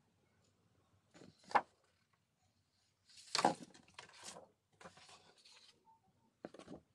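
Sheets of scrapbooking paper being handled and slid across one another on a wooden table, in four short rustling slides, the loudest about a second and a half in and around three and a half seconds in.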